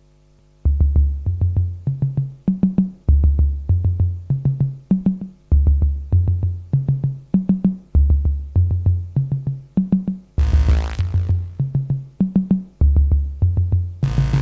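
Electro backing beat: a synth bass line climbing in four steps with drum hits, the pattern repeating about every two and a half seconds. It starts about half a second in after a faint low hum. A bright, noisy wash comes in briefly about ten seconds in and again near the end.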